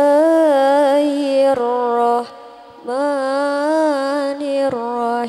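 Quran recitation in the melodic tilawah style: a single voice holds long, wavering, ornamented notes with no clear words. It breaks off about two seconds in for a short breath, then takes up another drawn-out phrase.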